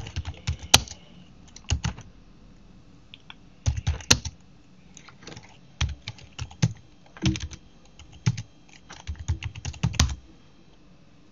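Typing on a computer keyboard: short runs of keystrokes separated by pauses, stopping about ten seconds in.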